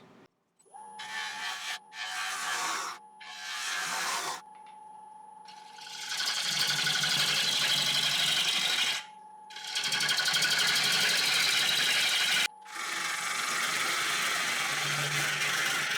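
Wood lathe running with a steady motor whine while a bowl gouge cuts into the spinning green ash bowl blank in repeated passes, giving a hissing, scraping shear. The first few cuts are short, and the later ones last a few seconds each. The wood is described as really hard to cut, with the grain all over the place.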